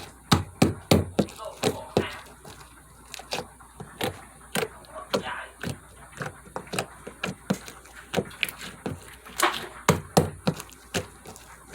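Slime being squeezed and pressed with one hand, giving an irregular string of short, sharp clicks and pops, a few each second.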